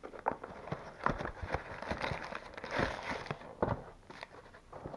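Cardboard box and paper wrapper rustling and crinkling as a frozen bar in a paper sleeve is pulled from an opened box, in irregular scrapes and crackles, loudest a little past the middle.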